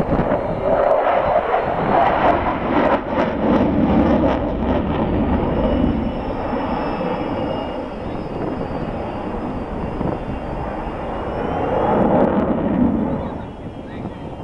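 Jet noise from a Su-27 fighter's twin AL-31F turbofans as it flies a display overhead: loud at first, easing in the middle, swelling again about twelve seconds in with a faint rising whine, then fading near the end.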